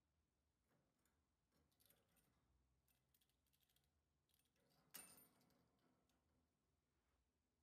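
Near silence in a small room, with faint scattered clicks and one sharper click about five seconds in.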